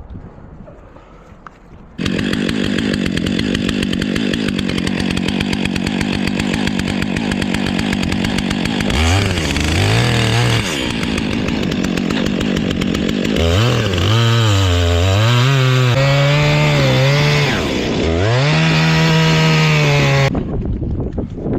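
Two-stroke chainsaw cutting through the trunk of a large black walnut. It comes in suddenly about two seconds in at high revs, then its engine note repeatedly sags and climbs back as the chain loads up in the wood. It falls away near the end.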